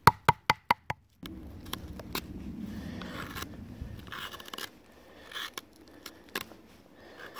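Five quick, sharp knocks in the first second, then a hand carving gouge cutting and scraping into wood as a hollow is dug out, in several crunching strokes.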